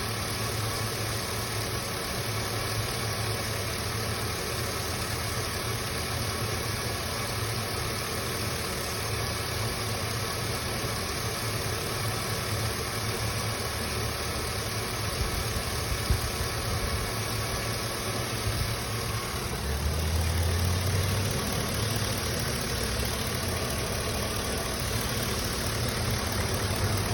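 2004 Chevy Silverado 1500 pickup engine idling steadily, with a short rise in its low note about twenty seconds in. The truck is throwing knock-sensor code P0332, but no knock sounds are really heard.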